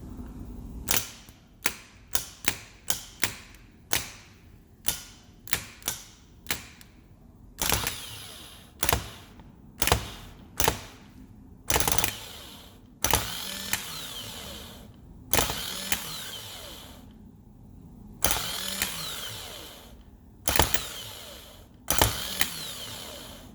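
Faulty starter motor from a 2007 Range Rover Sport 4.2 supercharged being energised on a bench: a run of sharp clicks over the first several seconds, then about ten short bursts of a second or so each, some with a brief whine that rises and falls.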